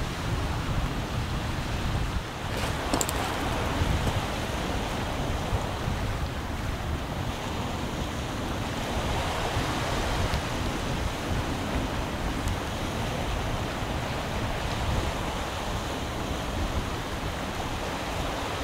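Wind buffeting the microphone over a steady wash of sea waves on the shore.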